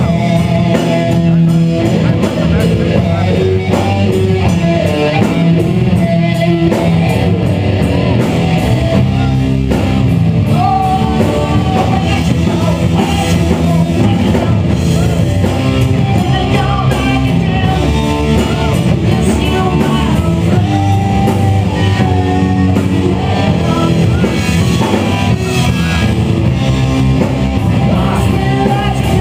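Live rock band playing loud: electric guitar and drum kit, with a singer's vocals.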